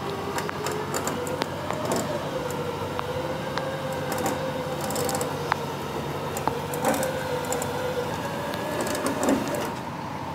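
Trailer winch whining steadily as it drags the fire truck up the loading ramps, its pitch wavering slightly under the load, with scattered sharp ticks.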